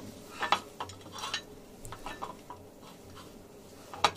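Hands mashing crumbly khoya against a ceramic plate: irregular light scrapes and taps of fingers and dough on the plate, with a couple of sharper clicks about half a second in and near the end.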